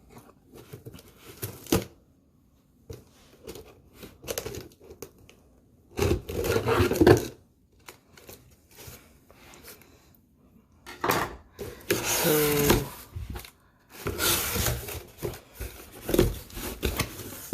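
A cardboard shipping box being cut open and unpacked: small scrapes and clicks of the cutting and the flaps, then several loud stretches of rustling and crinkling as the plastic air-cushion packing is pulled about.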